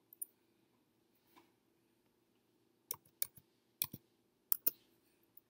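Handling noise of the recording device as a hand reaches in to it: a couple of sharp clicks just after the start, then a run of about six clicks and taps between about three and five seconds in.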